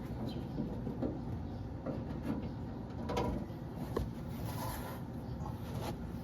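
Scattered light clicks and knocks of the fuel pump assembly being handled and fitted back into the fuel tank.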